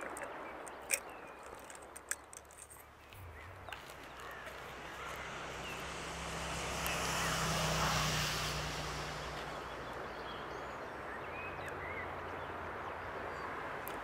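A motor vehicle passing at a distance: a low engine hum that swells to its loudest about eight seconds in, then fades but stays faintly audible. A few light taps sound in the first few seconds, and birds chirp faintly.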